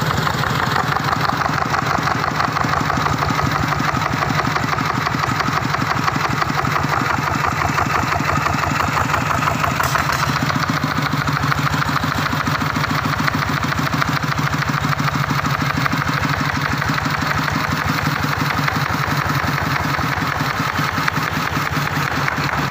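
Vikyno RV145-2 14 hp single-cylinder diesel engine running steadily, its firing beating out a rapid, even rhythm.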